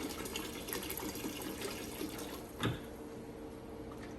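Concentrated vinegar pouring into a bucket of water, splashing steadily. A knock comes a little over halfway through, and the pour then trails off.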